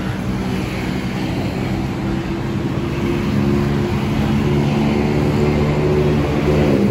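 Road traffic with a vehicle engine running steadily close by, growing a little louder about halfway through.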